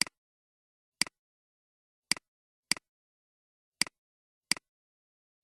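Computer mouse clicking: six sharp clicks at uneven intervals, each a quick press-and-release, with dead silence between.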